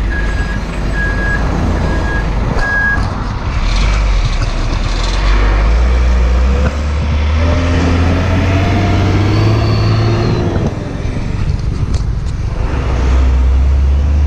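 Hino Ranger FG235TI truck's six-cylinder turbo-diesel pulling away and accelerating, its engine note rising, dipping about ten and a half seconds in as it changes gear, then rising again. A repeating beep, about two a second, sounds at the start and stops about three seconds in.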